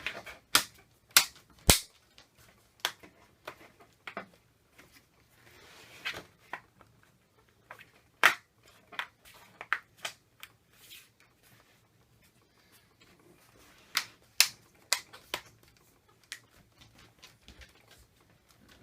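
Plastic screen bezel of a Dell Inspiron laptop being pressed back on around the display, its clips snapping into place in a string of sharp, irregular clicks. There is a quiet spell of about two seconds past the middle, then a few more loud snaps.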